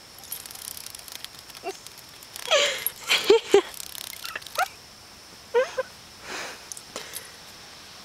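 A dog whining in short, pitched cries that bend up and down as it noses at a cicada it is wary of. A cluster of cries comes about two and a half seconds in and another near the six-second mark.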